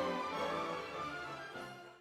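Instrumental background music with sustained tones, fading out toward the end.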